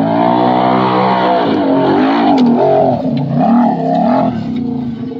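Side-by-side UTV engine revving under load on a steep dirt climb. It holds a steady high rev at first, then rises and falls in pitch as the throttle is worked, and eases off near the end.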